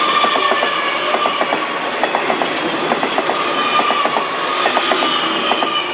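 Tze-Chiang express train passing at close range, its wheels clicking over the rail joints in repeating clusters of three or four about once a second, over a steady whine that falls slightly in pitch.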